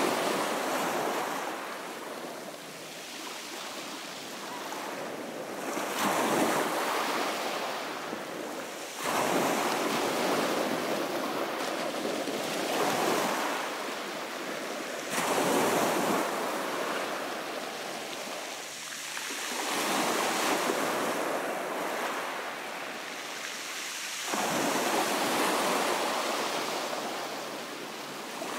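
Small waves breaking on a shingle beach and washing up over the pebbles, each one swelling in and fading, one every three to five seconds.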